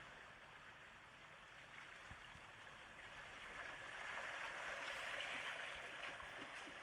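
Faint, steady rushing noise like running water, dipping at first and swelling again in the second half.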